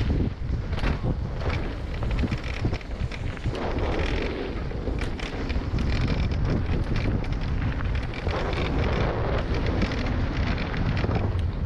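Wind buffeting a helmet-mounted camera's microphone during a mountain-bike descent on a dirt trail, with rumble and frequent rattling clicks from the bike over the rough ground.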